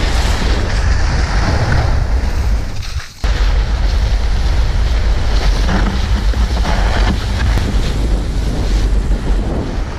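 Loaded gear sled (pulk) sliding over snow, its hull scraping and hissing, heard from a camera riding on the sled with heavy rumble and wind buffeting on the microphone. The noise breaks off briefly about three seconds in, then carries on.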